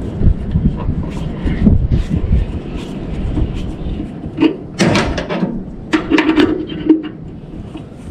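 Handling noise from a new spool of welding wire being fitted into a wire-feed welder: steady rustling and bumping, with several sharper metallic knocks and clacks in the second half.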